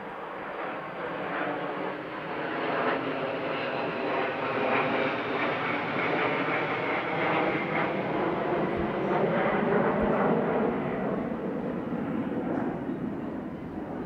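An airplane flying over: a broad engine drone that swells slowly, is loudest past the middle and eases off near the end, with a faint high whine sliding gradually down in pitch.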